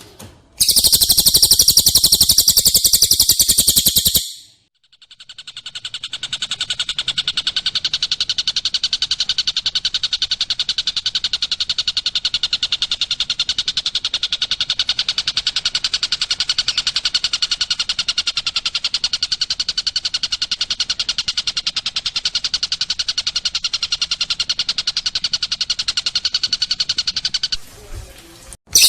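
Bird song from a masteran tutor recording. A short burst of very rapid, high trilling comes first. After a brief break, one long, rapid, even trill runs for over twenty seconds. A louder burst returns right at the end.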